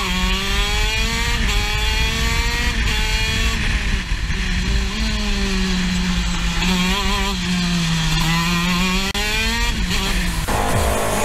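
Racing kart's two-stroke engine heard from the seat: its high buzz climbs in pitch as it accelerates, then drops back, several times. The engine sound cuts off suddenly near the end.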